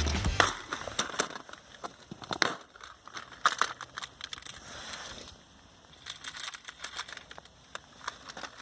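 Irregular crunching and crackling of snow and ice, busiest in the first half and growing faint after about five seconds.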